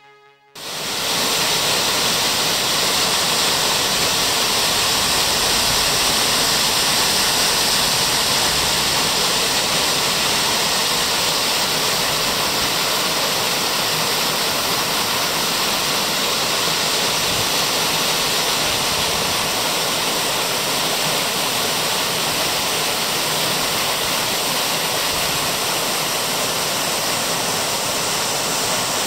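Waterfall on a river, water pouring and crashing in a steady, loud rush that starts suddenly about half a second in.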